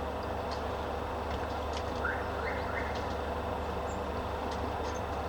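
Steady low rumble of distant traffic, with three short faint rising chirps about two seconds in.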